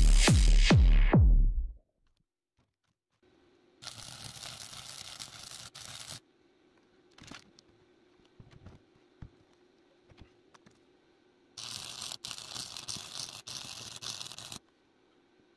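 Background music cuts off about two seconds in. Then a stick welder's arc crackles and hisses in two runs of two to three seconds each, with a faint steady hum and a few small clicks between them.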